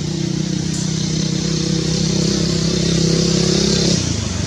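A motor vehicle engine running steadily close by, its note changing about four seconds in.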